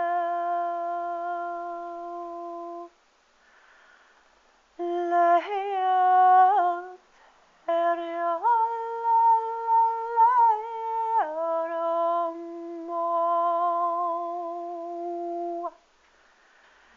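A high voice humming a slow melody in long held notes, in three phrases with short pauses between them; some notes step or slide up and down in pitch.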